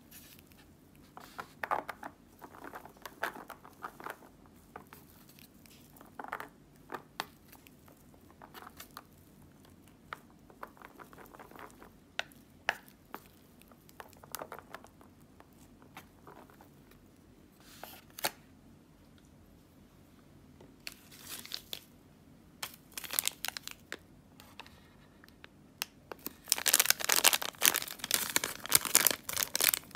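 Wooden chopsticks clicking against a plastic noodle tray as they stir and lift instant yakisoba noodles, with scattered light rustles. Near the end a plastic seasoning sachet crinkles and tears, the loudest sound.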